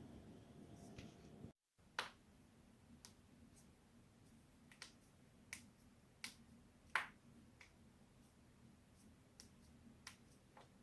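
Human joints cracking: about ten short, sharp pops at irregular intervals, roughly a second apart. The loudest come about two seconds in and near the middle.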